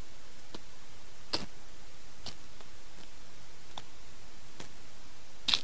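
Close-miked chewing sounds of a person eating petai beans and fried food with her hands: scattered crisp clicks and small crunches, the loudest about a second and a half in and again near the end, over a steady hiss.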